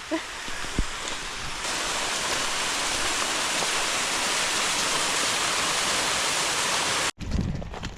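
Waterfall rushing, a steady even wash of falling water that cuts off abruptly about seven seconds in.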